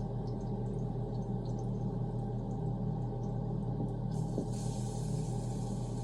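Stove range hood fan running with a steady low hum. About four seconds in, a high hiss of hot grease sizzling in the frying pan joins it.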